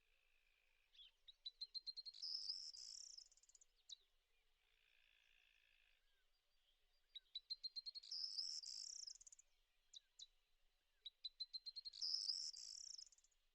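A small bird singing the same song three times, about every five seconds: a run of quick high ticks that speeds up into a dense, buzzy trill.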